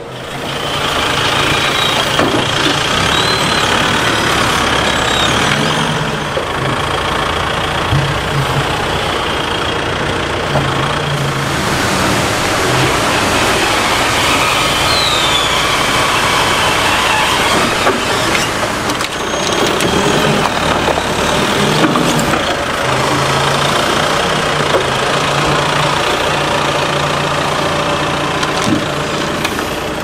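Forklift engine running, a loud, continuous mechanical noise with a low hum that comes and goes.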